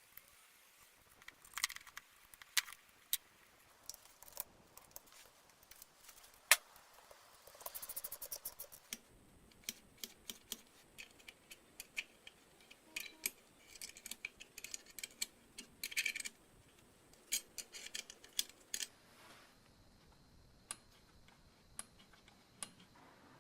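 Small metal parts and hand tools clicking and clinking, with scattered sharp ticks and a short quick rattle about eight seconds in.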